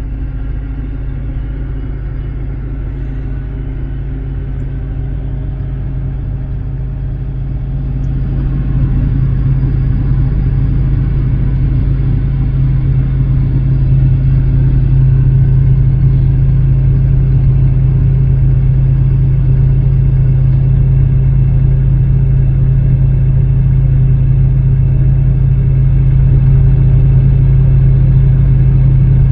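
Combine harvester's diesel engine running steadily with a low hum. It grows louder about eight seconds in and again a few seconds later, then holds.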